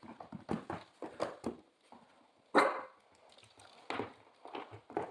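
A puppy barking in short bursts at a mop, with one louder bark about two and a half seconds in. The barking is playful excitement rather than aggression.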